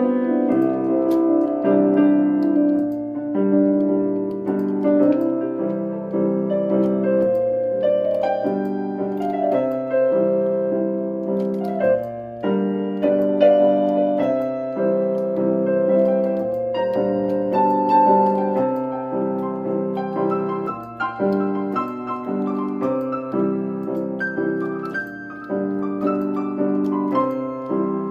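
Portable electronic keyboard played with a piano voice: a blues in C, with repeated chords struck in a steady rhythm and a melody line above them.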